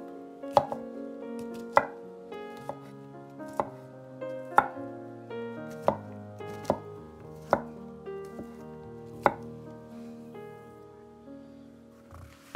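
A large kitchen knife chopping button mushrooms on a wooden cutting board: sharp knocks of the blade on the board about once a second. Soft background music plays under the knocks.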